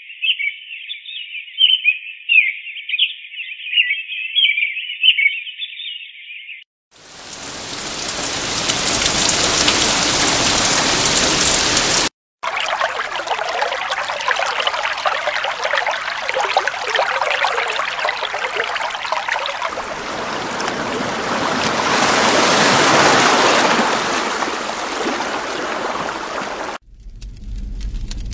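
Sleep sound machine stepping through its soothing-sound tracks. A thin chirping track plays for the first six seconds or so, then a steady hiss starts. It cuts off briefly at about twelve seconds and gives way to a rushing, rain- or stream-like noise. Near the end that changes to a low hum.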